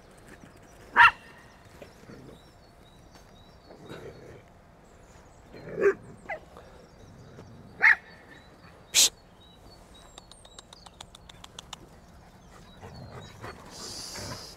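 Several dogs playing together, giving about five short, sharp barks and yelps a second or two apart, the loudest about a second in and around eight to nine seconds.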